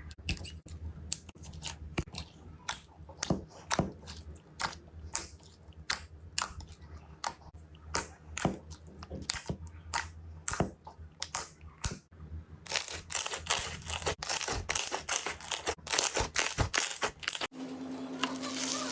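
Slime being squeezed and pressed by hand, making irregular crackling, popping clicks. The clicks become denser about two-thirds of the way in and cut off abruptly near the end, where a steady low hum takes over.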